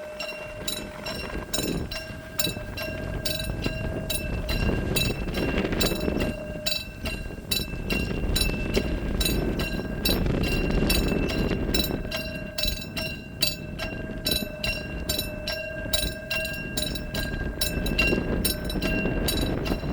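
Railroad crossing warning bell ringing in rapid, evenly repeated dings throughout, over the low rumble of a freight train of open limestone wagons passing through the crossing.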